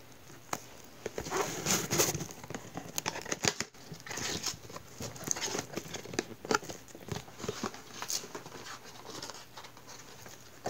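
Plastic wrap crinkling and tearing as it is pulled off a cardboard product box, with the box handled in between: irregular rustles and small clicks.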